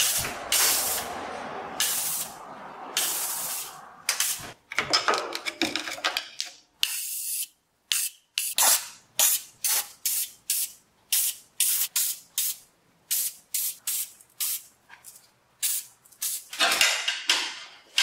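Aerosol can of penetrating lubricant spraying in a series of hissing bursts: a few longer sprays at first, then short squirts about one a second, with a longer spray near the end. The can has lost its straw, so it mists and sprays all over instead of jetting.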